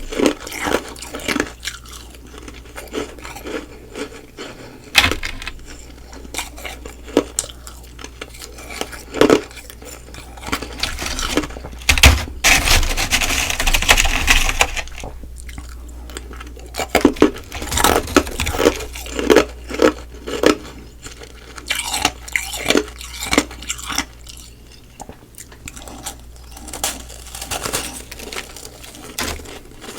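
Humidifier-frost ice being bitten and chewed close to the microphone: irregular crunches and crackles, with sharp clicks and clinks among them. A longer, louder crunching stretch comes about twelve seconds in.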